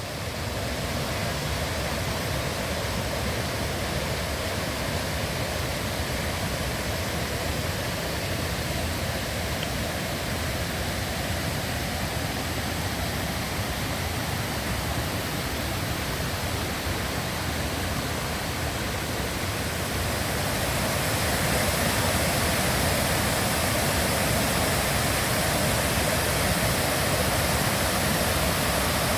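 Kuang Si waterfall cascades: a steady rush of falling water, growing louder about 20 seconds in.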